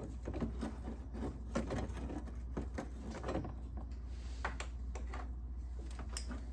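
Faint, irregular small clicks and scraping of hand work on the ice maker's fill tube, which is frozen solid with ice, over a steady low hum.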